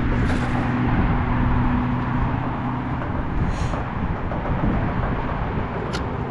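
Strong wind buffeting the microphone with a dense, rough rumble. A low steady hum runs underneath for the first three seconds or so and then fades. There are a few brief rustles.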